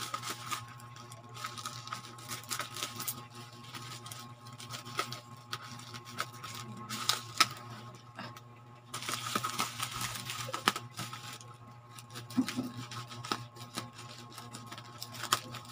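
Scissors snipping and plastic packaging crinkling as a parcel's wrapping is cut open: irregular clicks and rustles, busiest about nine seconds in, over a steady low hum.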